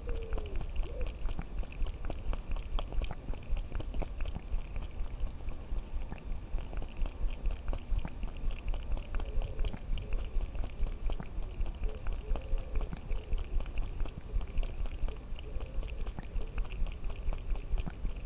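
A cat heard up close through its own collar microphone: a rapid, even, low pulsing with scratchy clicks and rubbing against the collar, and a few faint mewing calls near the middle and end.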